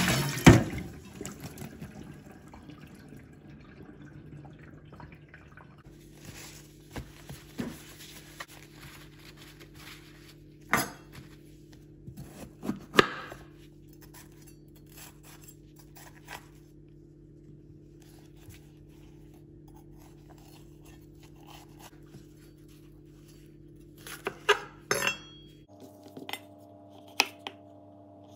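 Water splashing and running off as mushrooms in a plastic basket are lifted out of a bowl of water. Then sparse knocks of a knife on a wooden cutting board as a red bell pepper is cut, a cluster near the end, over a faint steady hum.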